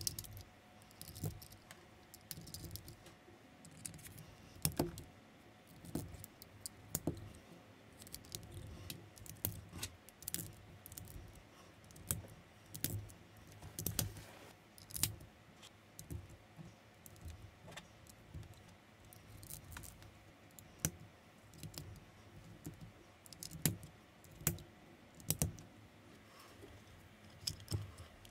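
Plastic building bricks clicking and rattling as pieces are picked out and pressed together by hand, in irregular clicks several times a second.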